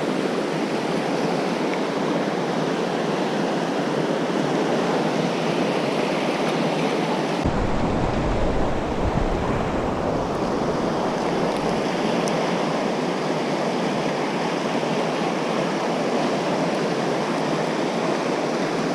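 River rapids in high flow, a steady rush of whitewater, with a brief low rumble on the microphone about seven and a half seconds in.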